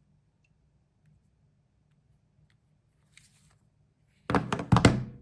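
Handling noise: a faint rustle about three seconds in, then a quick cluster of loud knocks and clicks near the end.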